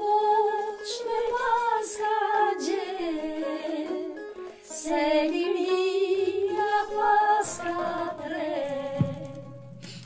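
Women singing a song together, accompanied by a plucked acoustic guitar. Near the end the voices thin out and a low steady hum comes in beneath them.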